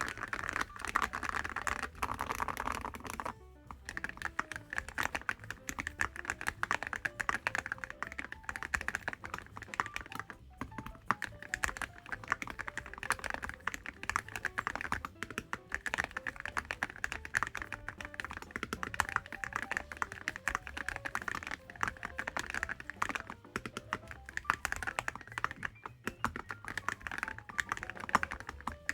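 Fast typing on a mechanical keyboard fitted with full-metal (gold- or titanium-coated cupronickel) keycaps: a dense run of keystroke clacks with a brief pause a few seconds in, over background music.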